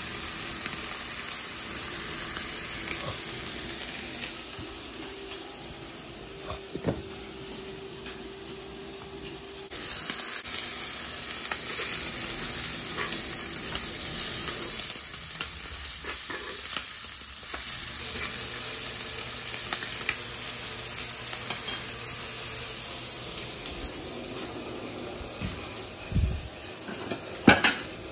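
Sausage patties and turkey bacon sizzling on an electric griddle, the frying growing louder about ten seconds in. A few sharp knocks come near the end.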